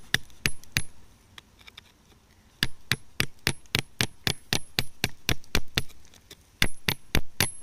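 Sharp hammer strikes chipping at rock, each with a brief metallic ring. A few blows come first, then after a short pause a steady run of about three to four a second, then a last cluster near the end.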